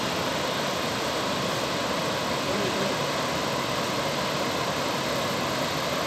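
Steady rushing of white water over the rocks of river rapids and a low waterfall.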